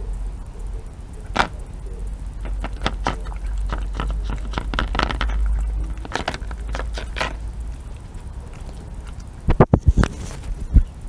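Red fox eating from a plastic tub right by the microphone: a run of short clicks and crunches as it chews and noses the container. Near the end come a few loud, heavier thumps, over a low rumble in the first half.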